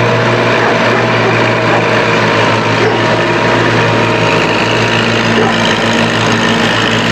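Kubota compact tractor's diesel engine running steadily as it drives across the ground with its front loader and rear implement.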